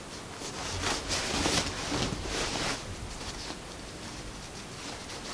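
Cotton wax print fabric rustling as it is bunched and handled while elastic on a safety pin is pushed through the waistband casing. Soft, brushing rustles in the first half, quieter towards the end.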